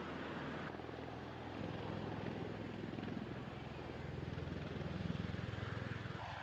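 Bell Boeing V-22 Osprey tiltrotor's rotors and engines running as a steady low drone with a fast rotor pulse, changing abruptly about a second in.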